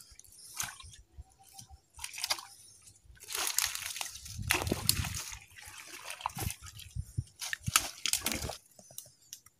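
Rubber boots sloshing and splashing through shallow water and soft mud, in irregular steps that come thickest in the middle of the stretch and stop shortly before the end.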